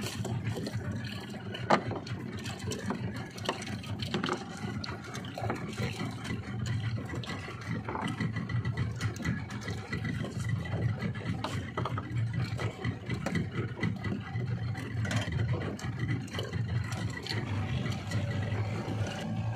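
Small boat's outboard motor running at low trolling speed, a steady low drone, with one sharp knock about two seconds in.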